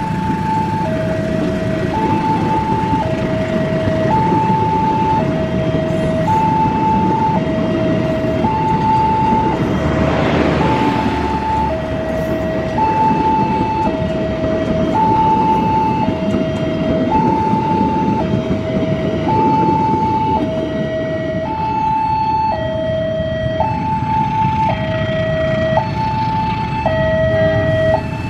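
A level crossing's warning alarm sounds a steady high-low two-tone pattern, about one tone a second, over the low rumble of passenger carriages running past on the rails. A louder rush of noise swells and fades about ten seconds in.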